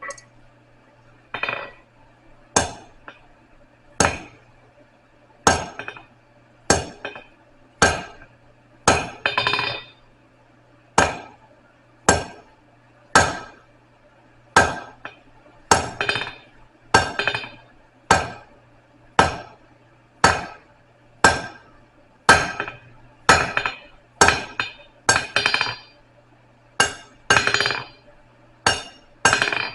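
Hand hammer striking a 3/8-inch rod on an anvil to taper it: about 27 sharp, ringing blows at roughly one a second, coming a little faster near the end. A steady low hum runs underneath.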